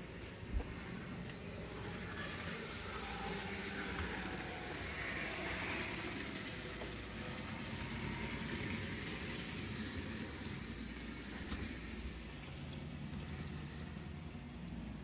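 Model train running on the layout's track: a steady hum and rolling wheel noise with scattered faint clicks, and one sharp click about half a second in.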